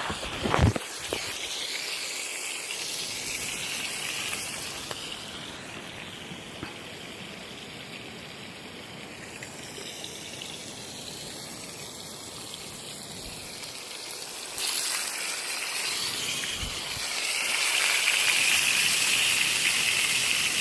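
River water running steadily, with a few short knocks in the first second. The water gets louder from about fifteen seconds in.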